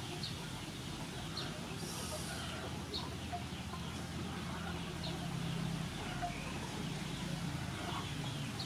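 Outdoor ambience: scattered short bird calls, some like chickens clucking, over a low steady hum.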